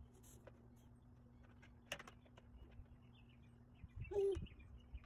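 A few small clicks, then about four seconds in a short pitched hum, a baby's "mmm" while chewing food.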